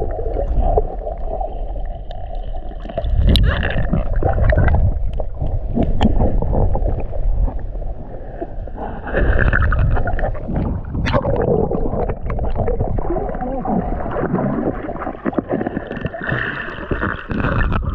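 Muffled gurgling and sloshing of water picked up by an action camera held underwater while swimming, with scattered clicks and knocks. The water noise swells louder about three seconds in, again around nine seconds, and near the end.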